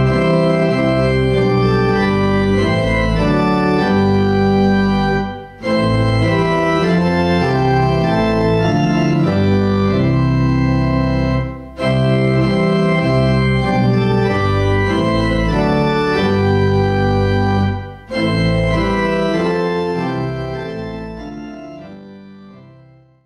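Organ playing slow sustained chords in four phrases with a short break between each; the last phrase fades away near the end.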